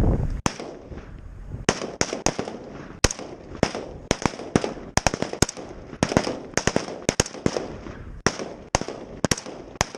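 Rifles firing semi-automatic on a firing line: about twenty sharp shots at an uneven pace, often two or three within a second, from several shooters at once.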